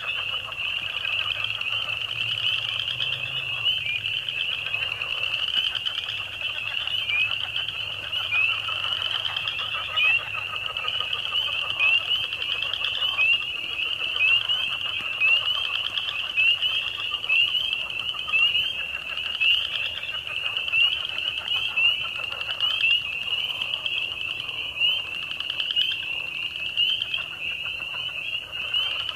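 A dense chorus of frogs calling, many short, high, rising calls overlapping without a break, with a fainter, lower layer of calls beneath them.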